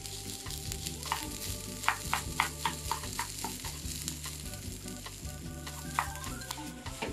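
Diced onion sizzling gently in a small nonstick frying pan over low heat, sweating until translucent. A wooden spatula stirs and scrapes against the pan, with a quick run of clicks about two seconds in and another near the end.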